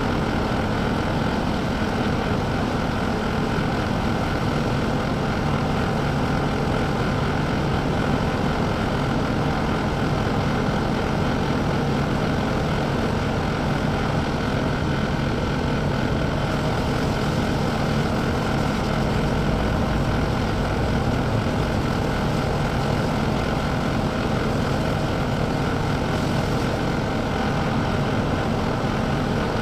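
CAT skid steer loader's diesel engine running steadily, a constant low drone with some hiss above it.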